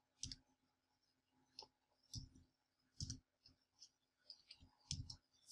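Faint computer keyboard keystrokes: about a dozen separate, unevenly spaced taps as a short code is typed in.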